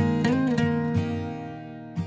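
Background music: a plucked acoustic guitar melody, with one note bent up and back down near the start.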